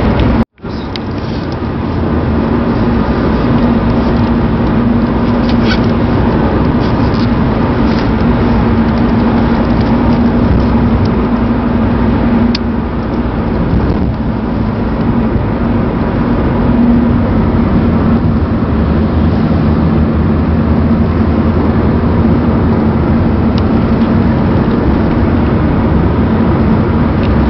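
Steady road and engine noise heard inside a moving car's cabin, a constant hum with a low drone under it. The sound cuts out for an instant about half a second in.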